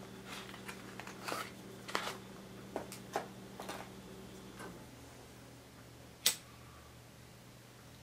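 Small clicks and rustles of a cardboard cigarette pack being handled and a cigarette drawn out, over a low steady hum. One sharp click about six seconds in.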